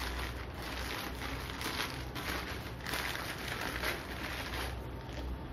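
Plastic courier mailer bag crinkling and rustling in irregular bursts as hands handle it and draw its contents out, over a steady low hum.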